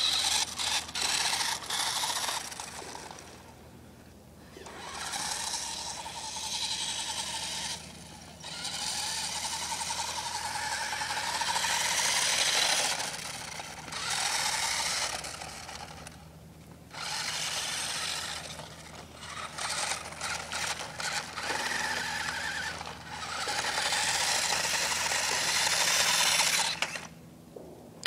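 Remote-control toy four-wheeler's motor and gearbox whining in bursts of one to several seconds, with short pauses between, as it is driven over packed snow.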